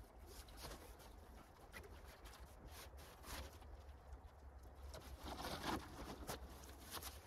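Faint rustling and crinkling of plastic tarpaulins and dry leaves as the sheets are handled, with scattered light clicks. The rustling grows denser and louder about five seconds in.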